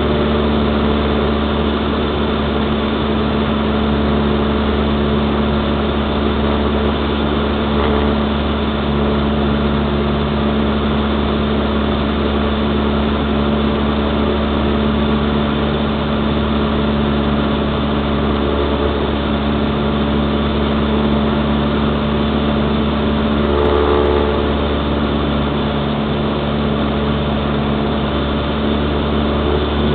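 Cessna 172's piston engine and propeller running steadily in flight, heard from inside the cockpit as a constant drone.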